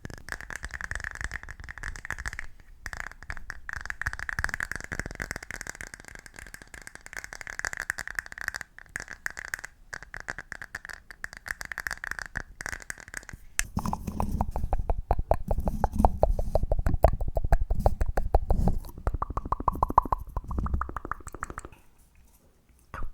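Rapid, close-miked ASMR tapping: a dense run of very fast taps carrying a steady ringing note. About 14 s in it turns into louder, deeper taps whose ringing note rises in pitch toward the end, then stops about 22 s in.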